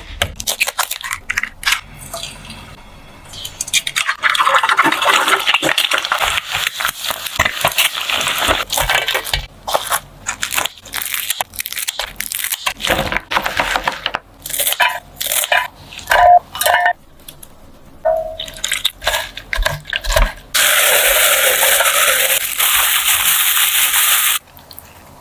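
Kitchen food-preparation sounds: many sharp clinks and scrapes of utensils and dishes over stretches of hiss. Near the end a loud, steady hiss starts suddenly and cuts off about four seconds later.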